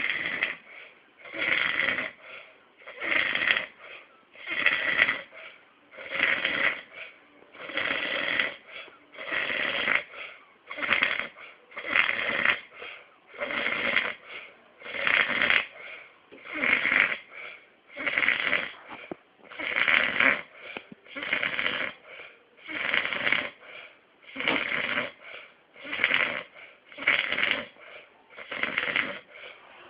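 Fierce snoring: a loud rasping snore about once a second, in a steady rhythm with quiet gaps between snores.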